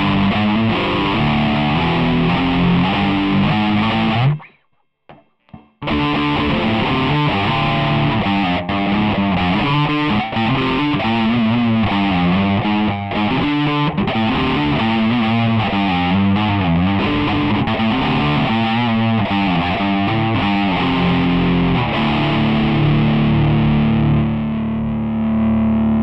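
Electric guitar played through a Boss ME-20 multi-effects pedal with its overdrive/distortion section on: a distorted riff of moving notes. About four seconds in the playing cuts off for a second and a half of near silence, then resumes, and near the end it settles into a held chord ringing steadily.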